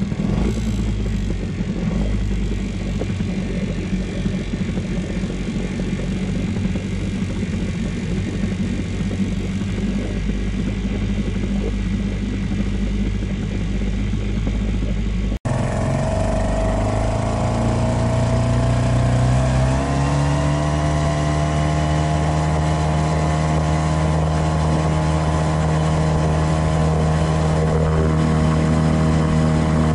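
Small Mariner outboard motor on an inflatable boat, idling steadily, then after a cut running under way. Its pitch climbs as the throttle opens, then holds steady at cruising speed.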